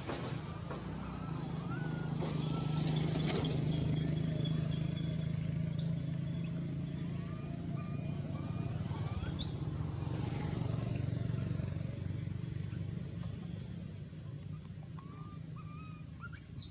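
A motor vehicle's engine running with a steady low hum, growing louder over the first few seconds and then slowly fading. Small birds chirp over it now and then.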